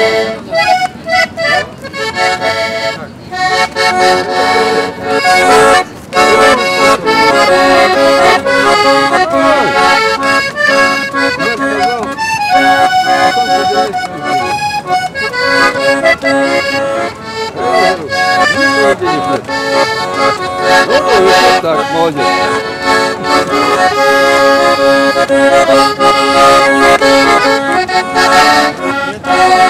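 Russian garmon, a small button accordion, played continuously in a lively traditional tune with chords and melody, with a man's singing voice over it in places.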